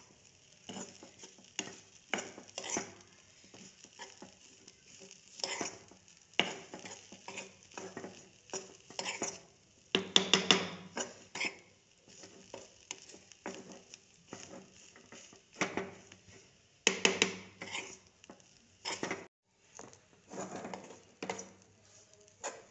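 A spatula stirring and scraping a dry, crumbly filling of soya chunks, cabbage and onion around a kadhai, in irregular strokes. The loudest bursts of scraping come about ten and seventeen seconds in.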